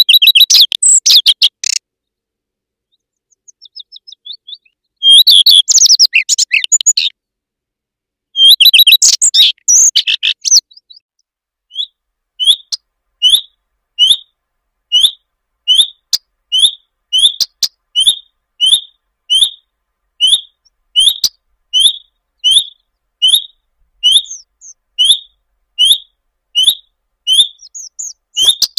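Common redstart singing three short, rapid warbling phrases in the first ten seconds, then giving a long run of single short calls, about one every 0.7 seconds.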